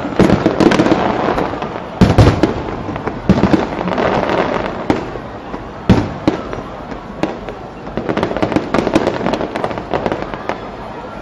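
Fireworks display: a series of booming shell bursts, the loudest about two seconds in and again near six seconds, then a dense run of crackling reports before it dies down near the end.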